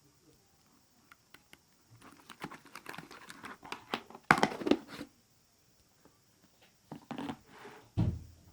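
Crinkling and crackling handling noises with scattered clicks, a louder rustle a little after four seconds in and a low thump near the end.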